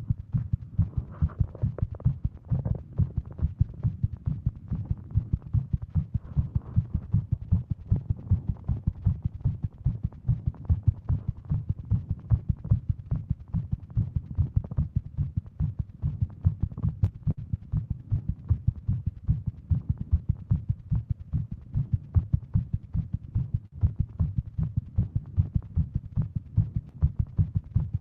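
A woman's heart beating fast and regularly, deep thuds at two to three a second. This is a tachycardia, over 150 beats a minute, which she puts down to Wolff-Parkinson-White syndrome.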